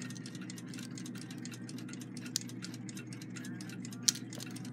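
Fine metallic clicking and ticking from a Westclox Big Ben alarm clock movement being turned and worked in the fingers, over a steady low hum. Two sharper clicks come about two and a half and four seconds in.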